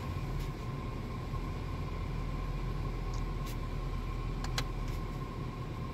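2007 Nissan Versa's four-cylinder engine idling steadily, heard from inside the cabin as a low, even rumble with a faint steady hum above it. A couple of faint clicks come in the second half.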